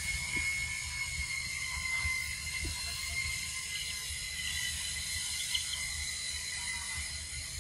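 Steady high-pitched insect chorus buzzing, over a low rumble.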